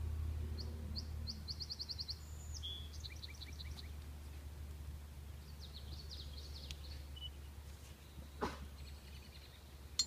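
Wild songbirds singing: several quick, high trills and chirp series, over a steady low rumble, with one sharp click near the end.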